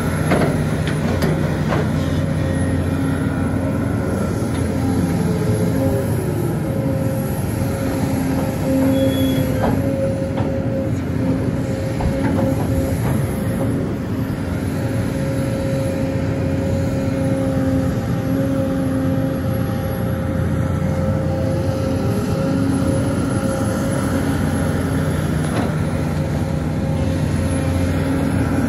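Sumitomo hydraulic excavator working while loading trucks, its diesel engine running steadily under load. A steady high whine sits over the engine, and lower tones come and go and bend in pitch now and then as it works.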